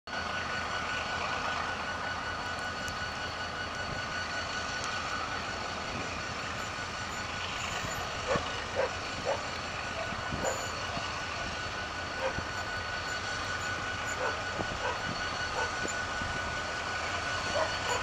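ALCO RSD16 diesel locomotive approaching from a distance, its engine running steadily, with a few short faint sounds from about eight seconds in.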